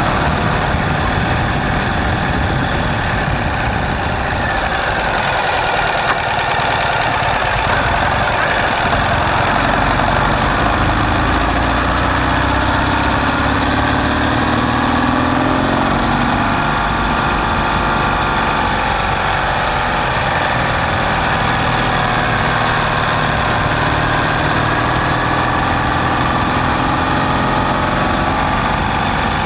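Sidecar motorcycle's flat-twin engine running under way, its pitch rising and falling several times with the throttle, over a steady rushing noise.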